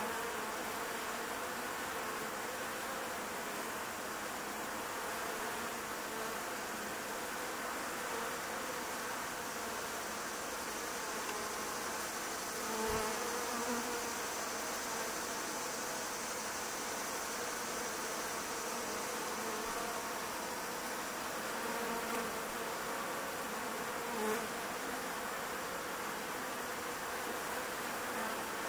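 Many honeybees buzzing close by as workers ball another bee on the ground: a steady, dense hum with a few brief louder swells as single bees buzz near. One soft low thump about halfway through.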